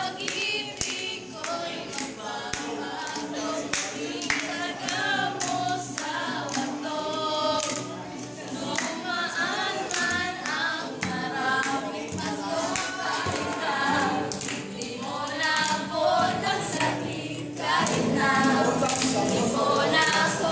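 A group of teenagers singing together unaccompanied, with hand claps keeping time.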